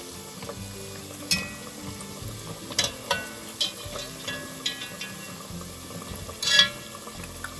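Hush puppies deep-frying in hot oil, a steady sizzle, broken by several sharp clinks in the pan, the loudest one near the end.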